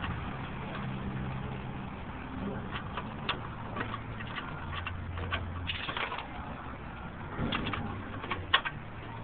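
Irregular metal clicks and scrapes as a hand works at a pickup truck's license-plate screw with a makeshift tool, over a low steady hum.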